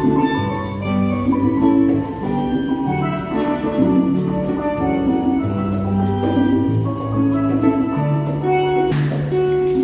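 Live rumba band music: a steel pan playing the melody over acoustic guitar and conga drums, with a steady beat. A hissing noise joins near the end.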